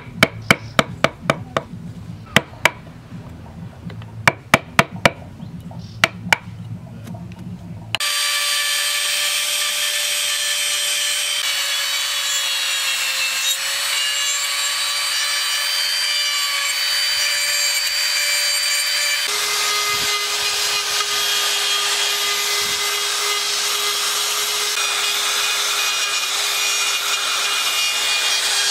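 A hand chisel cutting into the carved wooden elephant, with about twenty sharp taps over the first eight seconds. Then a handheld rotary tool with a carving burr starts suddenly and grinds the wood with a steady whine, which drops to a lower pitch about two-thirds of the way through.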